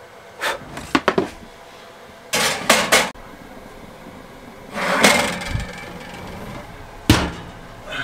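Metal baking sheet clattering and scraping as it is slid onto the rack of an RV trailer oven, in several short bursts, then the oven door shut with a sharp knock about seven seconds in.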